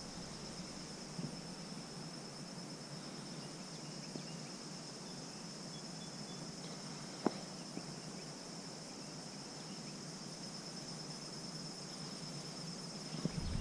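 Insects trilling in a steady, high-pitched chorus, with a single sharp click about seven seconds in.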